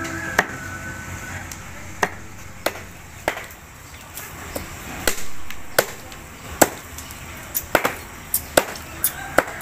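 Food being chopped with a blade on a hard surface: about a dozen sharp strikes at an uneven pace, coming quicker near the end.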